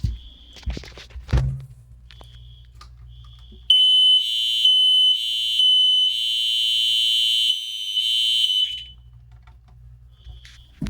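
Fire alarm horn sounding one loud, steady high tone for about five seconds, from a few seconds in. Underneath, a fainter horn keeps pulsing in the temporal-3 evacuation pattern.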